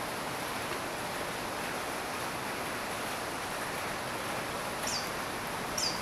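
Steady hiss of rain falling. Near the end come two short, high, downward-sliding bird chirps.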